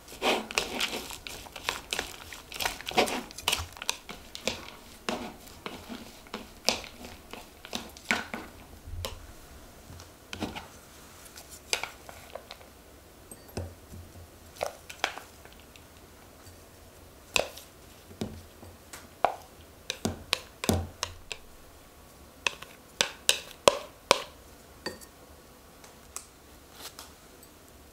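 Wooden chopsticks tossing sliced green peppers and whitebait in a bowl, then lifting them into a small ceramic bowl. Irregular sharp clicks of the chopsticks against the bowls come with soft, moist rustling of the food. The clicking is busiest in the first few seconds and sparser after.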